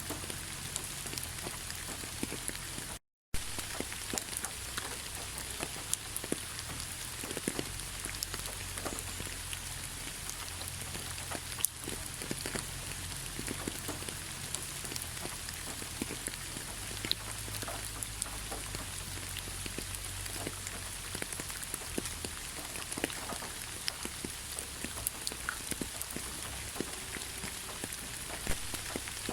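Heavy rain falling steadily: a dense, even hiss scattered with sharp hits of single drops on a surface. The sound cuts out completely for a split second about three seconds in.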